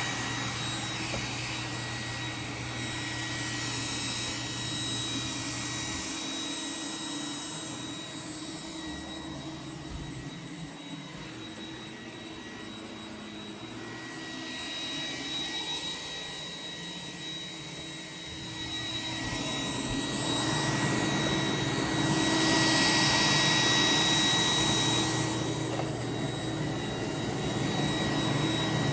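iRobot Roomba 980 robot vacuum cleaning, its fan running with a steady high whine over a rushing air noise. The sound fades and swells as the robot moves about, and is loudest about two-thirds of the way through.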